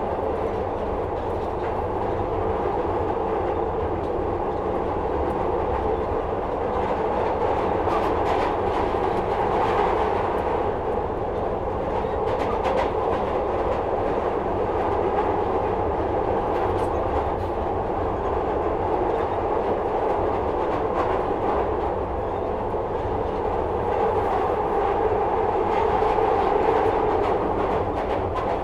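Metro-Cammell-built Glasgow Subway train heard from inside the car as it runs through the tunnel: a steady rumble and roar of wheels on rail, with a few faint clicks. The sound swells slightly now and then.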